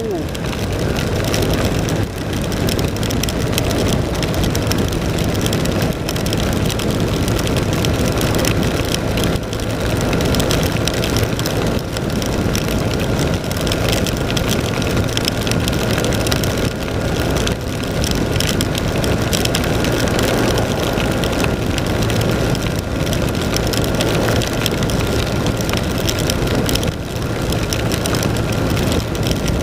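BMW R1200 RT-P motorcycle's boxer twin running steadily at road speed under a constant rush of wind and rain noise on a wet ride.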